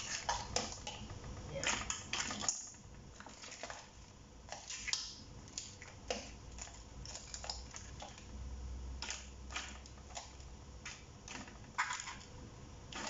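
Metal kitchen tongs clacking and scraping against a metal pan and tray as cooked crabs, shrimp and corn are picked up and moved, in irregular clicks with the odd crunch of shell.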